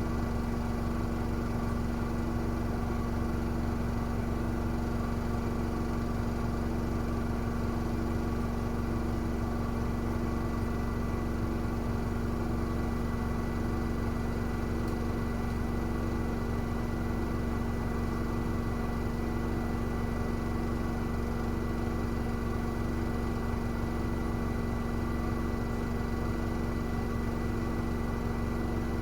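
Miele W1 front-loading washing machine spinning its drum steadily, with a constant motor hum and a faint pulsing about once a second.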